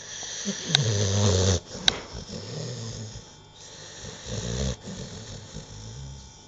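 Sleeping bull-terrier-type dog snoring with low, rasping breaths. The first snore, about half a second in, is the loudest, another follows a few seconds later, and a fainter one comes near the end. Two sharp clicks fall during and just after the first snore.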